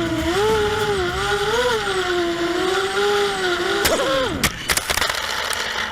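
ImmersionRC Vortex FPV quadcopter's brushless motors and 5-inch propellers whining, the pitch rising and falling with throttle. About four seconds in the motors spin down sharply amid several sharp knocks.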